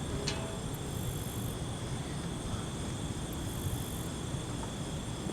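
Crickets and other insects calling steadily at night over a low, steady rumble, with a single brief click just after the start.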